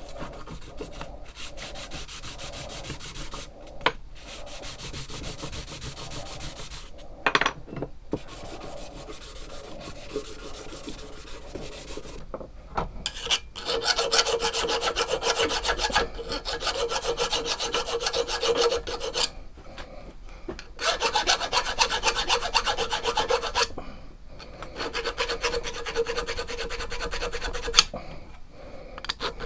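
A small metal plate rubbed back and forth on a sheet of sandpaper to smooth its edges. About halfway through, a louder hand file rasps over the edges of the plate's hole in passes of several seconds, with short breaks between them.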